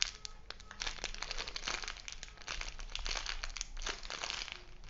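Plastic crinkling and rustling in quick, irregular crackles as a squishy toy is handled in its plastic wrapping.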